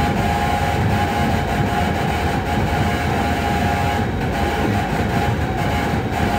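Harsh electronic noise from a light-responsive DIY oscillator synthesiser: a dense, steady rumbling wash with a high drone held on top.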